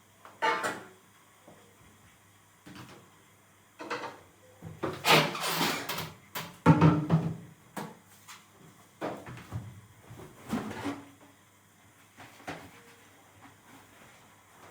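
Irregular knocks and clatters of household objects being handled and set down, the busiest and loudest stretch in the middle.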